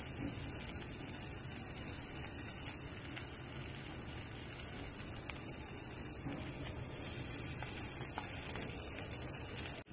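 Folded tortilla fajita frying in a nonstick pan, sizzling gently with a steady soft hiss and faint crackle.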